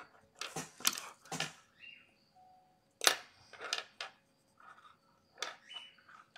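Drawing tools handled on a tabletop: about six sharp clicks and light taps as pens are put down and picked up and a plastic drawing template is set on the paper.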